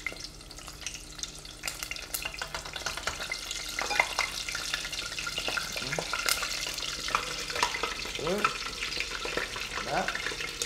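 Frozen spring rolls (chả giò) deep-frying in hot oil: a dense, crackling sizzle. The water on the rolls' frozen surface is boiling off in the oil, the first stage of frying.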